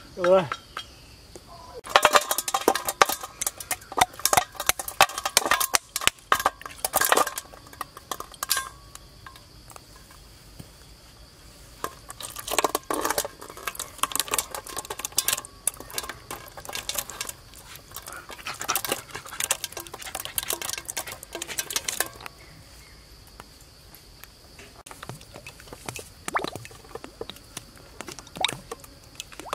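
Bursts of clinking and scraping as a utensil works against a metal basin while chili paste is mixed, in three spells with pauses between. A steady high insect drone runs underneath.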